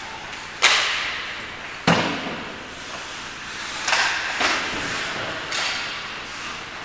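A series of five sharp thuds that echo in a large hall, spaced irregularly a second or two apart. The first two are the loudest.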